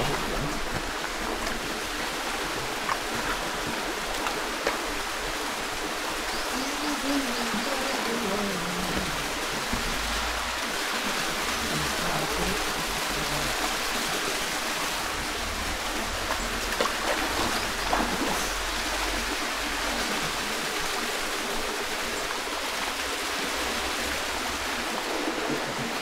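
Small waterfall pouring down a rock face into a shallow rock pool: a steady, even rush of falling and running water.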